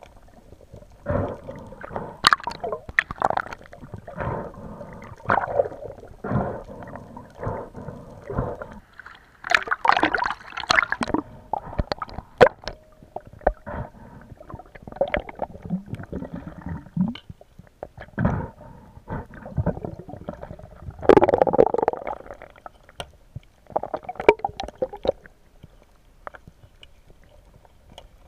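Underwater sound picked up by a camera in its housing: irregular bursts of gurgling water movement and handling noise, with scattered sharp clicks and knocks; the loudest bursts come about ten and twenty-one seconds in.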